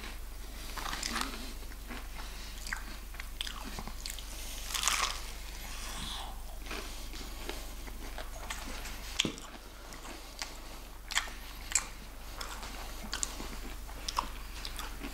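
Crunchy bites into KFC fried chicken and close-up chewing, with several sharp clicks in the second half.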